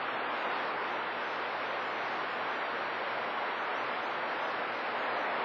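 CB radio receiver on channel 28 (27.285 MHz) giving a steady static hiss with no voice, the open-channel noise between skip transmissions.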